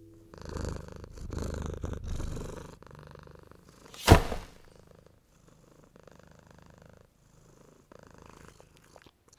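Domestic cat purring in rhythmic breath-by-breath pulses, loud at first and faint from about five seconds in. One short sharp noise comes about four seconds in.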